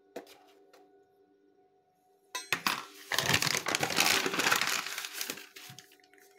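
Flour bag crinkling and rustling as flour is poured into a mixing bowl: a brief run of clicks, then about three seconds of loud crackling that tails off.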